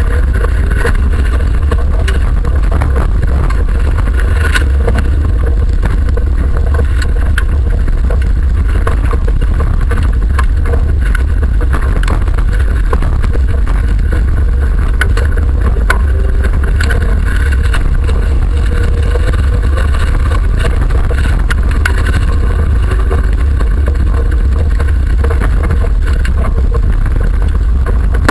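An autocross race car heard from inside its cabin: the engine runs hard with its pitch rising and falling, over a heavy low rumble and frequent clicks and knocks from the rough dirt track.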